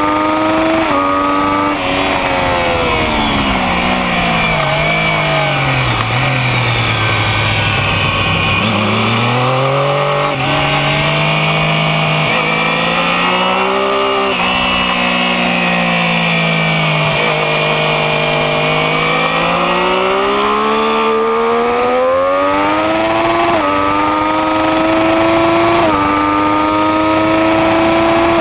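Sport motorcycle engine heard from on board at track speed. Early on the revs jump once or twice at gear changes, then fall steadily for several seconds as the bike slows for a corner and stay low. They climb, dip again, and finally rise with another gear change near the end.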